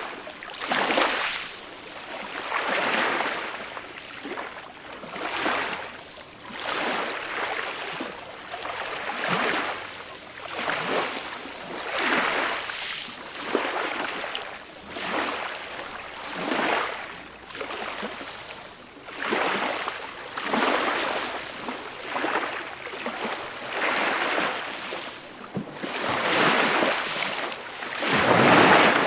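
Small, gentle sea waves breaking and washing up a beach, a soft surge of surf every second or two, the biggest one near the end.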